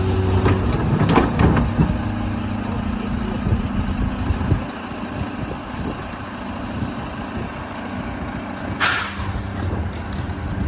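Mack LR rear-loader garbage truck running, with a few sharp knocks in the first two seconds. A short air-brake hiss comes about nine seconds in.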